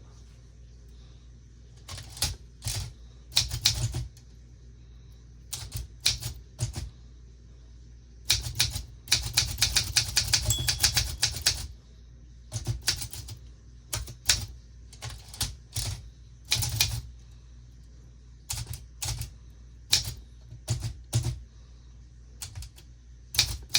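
Olympia SM9 manual portable typewriter being typed on: sharp key strikes coming in irregular small groups, with a fast unbroken run of keystrokes near the middle.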